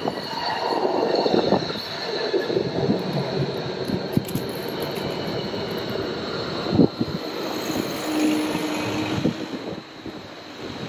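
A rail vehicle passing, its steel wheels squealing high on the rails over a steady running noise. There is a sharp knock about seven seconds in.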